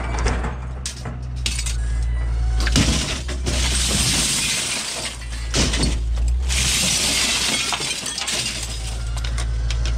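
Aluminum window frames with shattered glass being pulled from a pile. The glass crunches, tinkles and breaks, with two louder stretches of shattering about four and seven seconds in.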